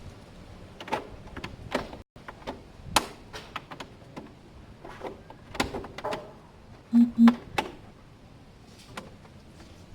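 Loose plastic body panels on a Honda SH125 scooter being wobbled by hand, clicking and knocking irregularly; their retaining clips are broken, so the panels sit loose. About seven seconds in, two short low beeps close together.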